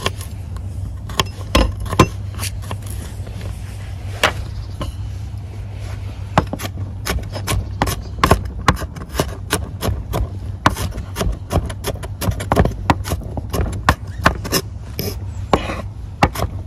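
Chef's knife chopping garlic cloves on a wooden cutting board: a few scattered knocks of the blade on the board, then quick, steady chopping from about six seconds in, over a steady low rumble.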